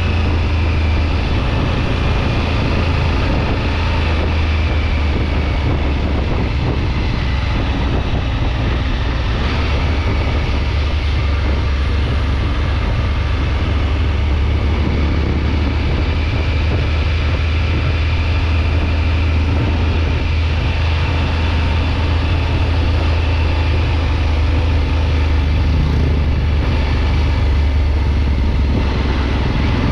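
Triumph Tiger 900 GT Pro motorcycle riding at a steady pace: its three-cylinder engine running under a heavy, even rush of wind and road noise.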